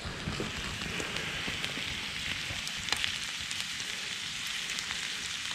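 Sirloin steaks with mushrooms and onions frying in garlic butter in a pan over a wood fire: a steady sizzle with a few sharp pops, the pan being stirred with a spoon.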